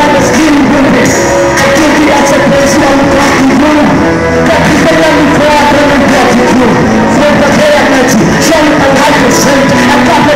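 Loud amplified gospel song: men singing into microphones over backing music with a steady beat.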